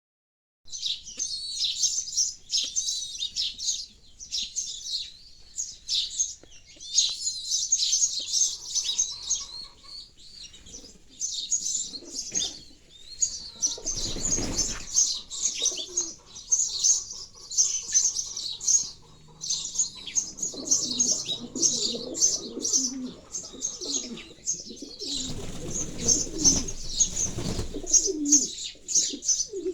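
Sparrows chirping busily and without pause, with pigeons cooing in low repeated phrases through the second half. Bursts of wing flapping break in about halfway through and again for a few seconds near the end.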